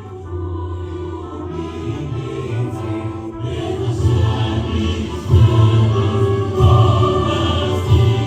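A choir singing with instrumental backing.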